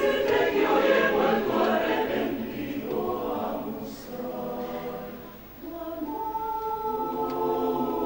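Mixed choir of men's and women's voices singing in close harmony, with no instruments. A full chord fades down around four to five seconds in, then a new chord enters about five and a half seconds in and is held.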